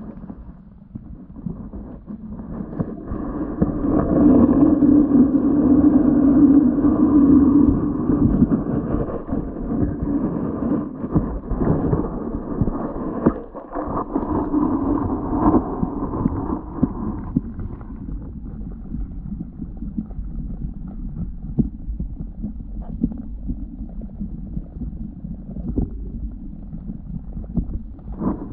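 Muffled sound heard underwater through a GoPro's waterproof housing: a low rumble. A steady droning hum swells in a few seconds in, is loudest for a few seconds, and fades out about two-thirds of the way through.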